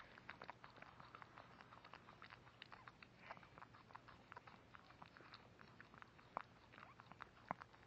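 Shih Tzu mother licking and mouthing her newborn puppy: faint, quick wet smacks and clicks, with two sharper clicks near the end.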